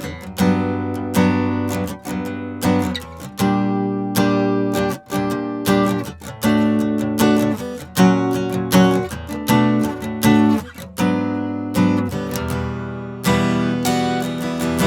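Taylor 814ce acoustic guitar, an older version of the model, strummed and picked in chords, each stroke ringing on into the next.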